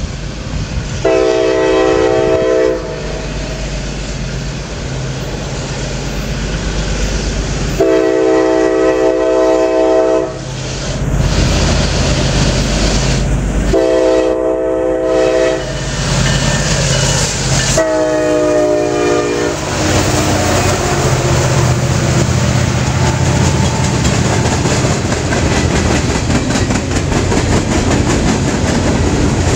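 CSX GE ET44AH diesel locomotive leading a freight train sounds its multi-note air horn in four blasts, the last one dropping in pitch as it passes. Its engine rumbles under the horn, then the freight cars roll by with a steady clatter of wheels on the rails.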